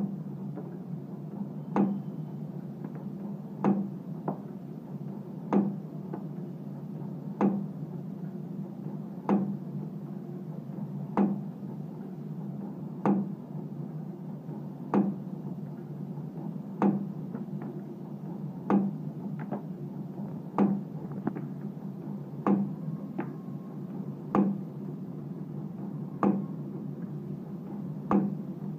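Wire spring-forming machine with radial tool slides running in a steady cycle: a sharp knock about every two seconds, with fainter clicks between them, over a steady low hum.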